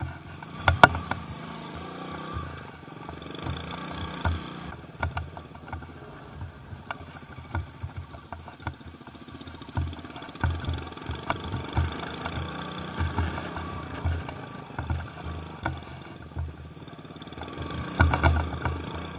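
Small motorcycle ridden over bumpy off-road ground, its engine running under frequent irregular thumps, knocks and rattles from the rough terrain. The knocks cluster about a second in and again near the end.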